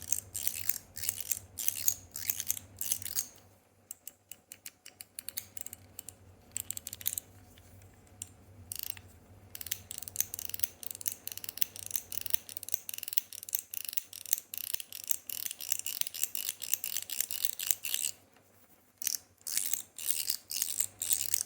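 Stainless steel fidget slider being worked back and forth, giving a run of sharp metallic clicks as it snaps between positions. The clicking gets sparser and fainter from about 4 to 10 seconds in, then comes back quick and strong near the end.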